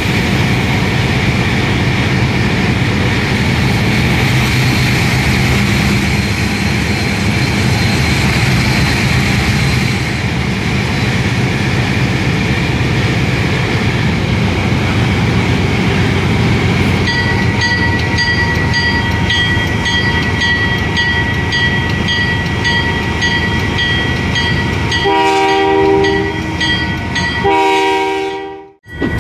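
Diesel locomotive running under way, heard from the walkway beside its hood: a steady engine drone with wheel and rail noise. About two-thirds of the way in, the locomotive bell starts ringing steadily, and near the end the air horn sounds two blasts, the second longer.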